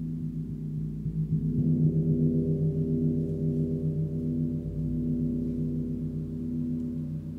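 Large suspended gong, tuned to G#1 (about 52 Hz), played gently with a padded mallet. It gives a sustained low, many-toned drone that swells louder about a second and a half in and then holds steady.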